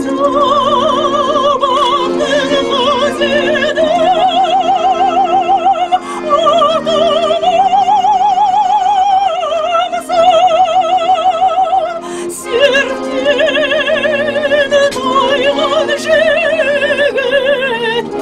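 A woman singing a traditional Kazakh song in a strong voice with wide, even vibrato, over steady accordion chords, with a brief pause about twelve seconds in.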